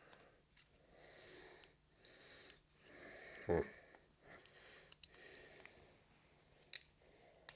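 Faint close breathing with small clicks from a hex key turning socket head cap screws into an oil pump cover by hand. There is one louder knock about three and a half seconds in.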